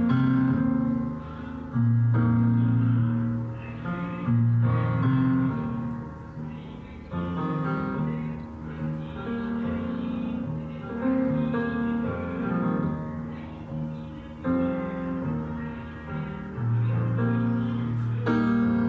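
Slow piano music, with deep bass notes each held for a second or two and chords changing every second or two.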